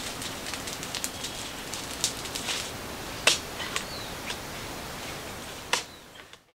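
Irregular sharp snaps and crackles of dry palm fronds and brush over a steady hiss, with a short rising bird chirp about four seconds in.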